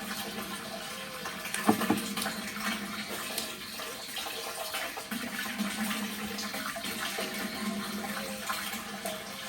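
Water running and splashing, with a sharp knock about two seconds in.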